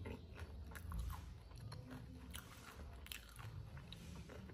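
A person biting and chewing crispy fried potato sticks, with faint crunches now and then.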